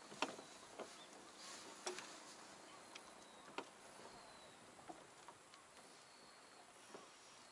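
Near silence, with a handful of faint, scattered light clicks and ticks.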